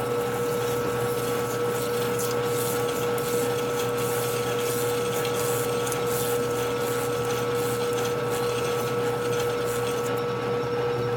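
Metal lathe running with a steady whine while emery paper on a file is pressed against a spinning transmission gear, adding a rough scratching hiss. The sanding is knocking down high spots on the gear's roller race.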